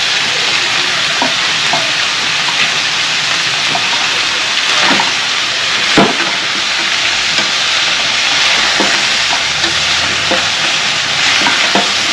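Turkey sausage and meat frying in a hot sauté pan, a steady sizzle while it is stirred, with scattered knocks and scrapes of the utensil against the pan, the sharpest about six seconds in.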